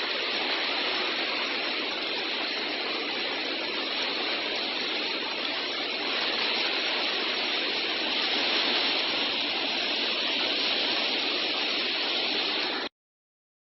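Iguazu Falls in flood: a steady rush of falling water, which cuts off abruptly near the end.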